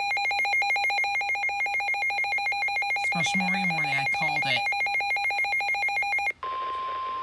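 Emergency Alert System attention tone: a loud, rapidly pulsing alarm buzz that cuts off about six seconds in, with a brief voice over it midway. A steady single-pitched alert tone, the NOAA Weather Radio warning alarm tone, follows straight after.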